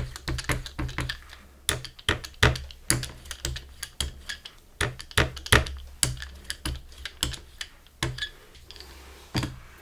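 Irregular run of sharp clicks and light knocks, about two to three a second, from paint tools worked against the palette and work surface while mixing and spreading acrylic paint.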